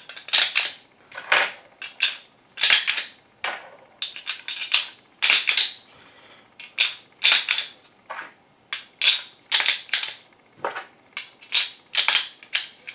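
Speed Beez magazine loader worked by hand, pushing 9mm rounds one by one into a 10-round Glock magazine: a steady series of sharp clicks and clacks, about two a second.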